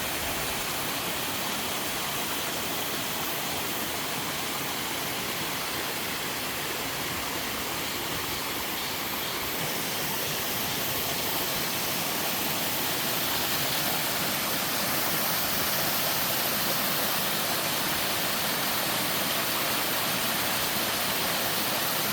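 Three-tier waterfall cascading steadily, a dense, even rush of falling water that grows slightly louder about halfway through.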